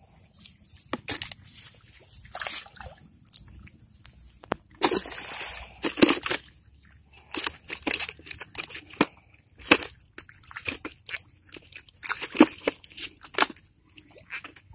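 Irregular short splashes and sloshes of water, with a longer splash about five seconds in.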